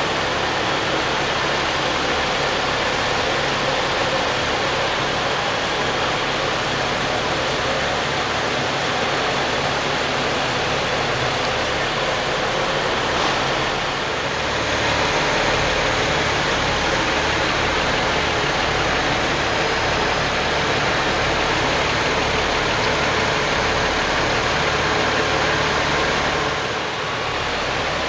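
BMW 135i's N55 turbocharged straight-six engine idling steadily, heard close with a broad hiss.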